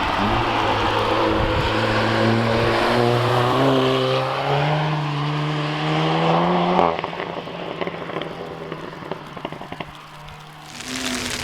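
Car engine accelerating hard, its pitch climbing steadily, then cutting off suddenly about seven seconds in as the throttle is lifted, leaving quieter crackling from the exhaust. Another engine rises in pitch near the end.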